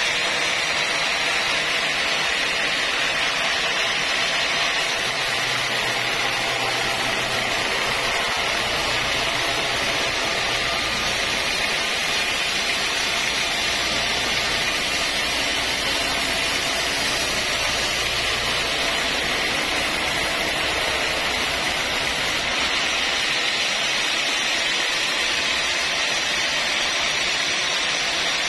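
Horizontal band sawmill running, its band blade cutting lengthwise through a large log with a steady sawing hiss. A low hum sits under it from about five seconds in until about twenty-two seconds.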